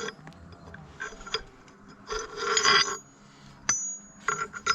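Steel parts scraping and ringing against each other: a ringing scrape lasting about a second in the middle, a sharp metallic clink, then more ringing scraping near the end.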